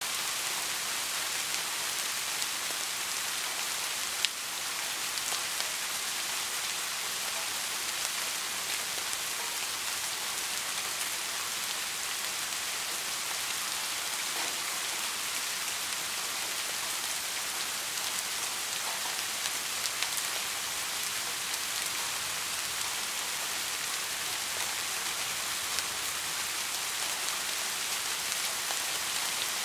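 Steady rain falling: an even hiss dotted with scattered single drop ticks, one sharper tick about four seconds in.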